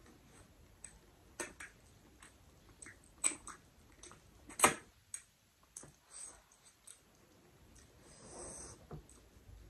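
Wet mouth sounds of fingers being licked and sucked clean after eating by hand: a string of sharp smacks and slurps, the loudest about halfway through. Near the end, a short rubbing as fingers swipe across the tray.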